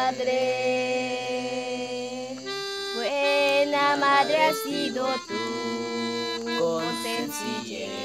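Melodica playing a slow hymn tune in long held notes, its reedy tone stepping to a new pitch every second or so.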